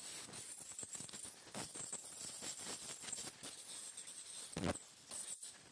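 Ultrasonic dental scaler working over a dog's teeth to remove tartar: a high hiss from the handpiece comes and goes under a run of small clicks and scrapes as the tip chatters against the teeth, with one louder knock about four and a half seconds in.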